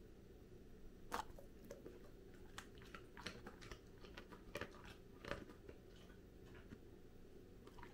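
A goldendoodle biting into and chewing a raw carrot stick: starting about a second in, a string of sharp, crisp crunches that thins out after about five seconds, with a few faint ones near the end.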